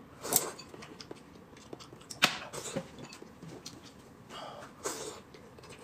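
A man eating dumplings in soup close to the microphone: several short slurps and breaths, with faint chewing and small clicks between them.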